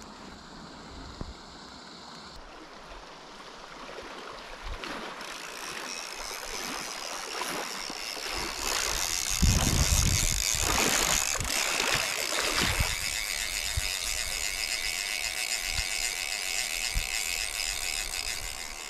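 Click-pawl fly reel (Hardy Marquis Salmon) ratcheting as line is wound in, over the rush of the river. The sound gets louder through the stretch, with heavier splashing in the shallows about halfway through.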